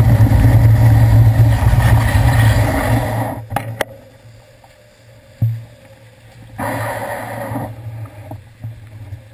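Wet city street traffic: a steady low engine hum from nearby vehicles for the first three seconds, then a sudden drop to quieter traffic with a few light clicks and a thump. A brief swell of traffic noise follows about two-thirds of the way through.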